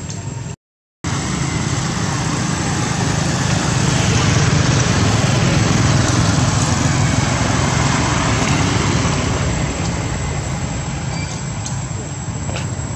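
Steady, loud outdoor rushing noise with a low rumble, swelling in the middle and easing off towards the end, with a dead-silent break of under half a second near the start.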